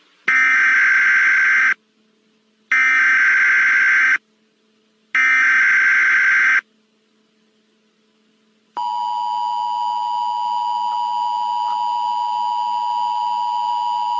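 Emergency Alert System SAME header: three bursts of data tones, each about a second and a half long. A couple of seconds after the third burst, the steady two-tone EAS attention signal starts, marking the start of an alert.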